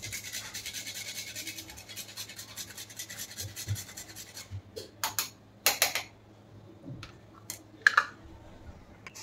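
Whole nutmeg grated on a small metal hand grater: rapid, fine scraping strokes for about four seconds. Then they stop, and a few sharp knocks follow.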